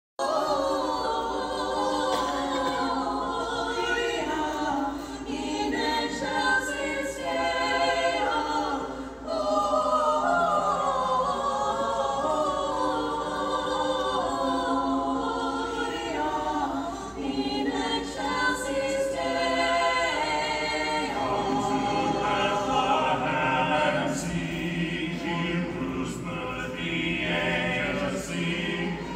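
Mixed choir of men's and women's voices singing continuously, with a lower part filling in about two-thirds of the way through.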